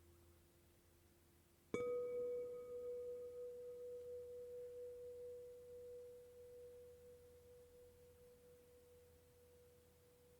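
Quartz crystal singing bowl struck once about two seconds in, ringing with one clear, pure tone that slowly fades. The fainter, lower tone of another bowl dies away before the strike.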